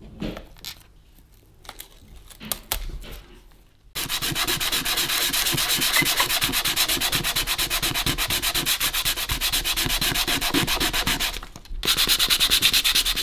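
Sandpaper rubbed by hand over a discoloured plastic radio part, stripping a stained surface layer. A few light handling clicks come first. About four seconds in, steady, rapid back-and-forth scratching strokes begin, with a short break near the end.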